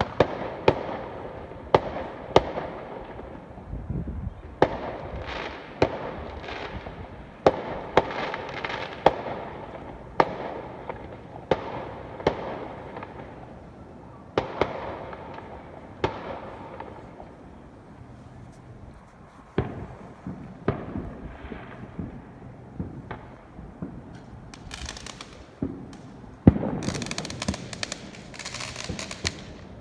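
Fireworks going off: a rapid, irregular string of sharp bangs through the first half, sparser later, with bursts of crackling near the end.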